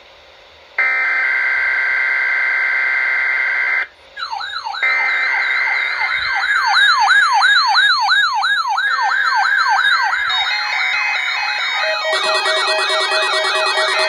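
Weather alert radios going off for a weekly test. A steady alert tone sounds for about three seconds, then several radios start their alarms at once: overlapping warbling siren tones, with further beeping tones joining near the end.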